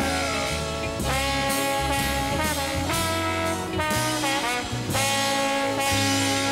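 Jazzy brass-band film score music, with steady held chords that change about once a second over a walking bass line, and sliding brass notes near the start and about four seconds in.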